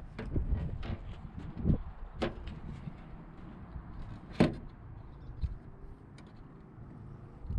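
Scattered light knocks and clicks of objects being handled, with a sharper knock about four and a half seconds in.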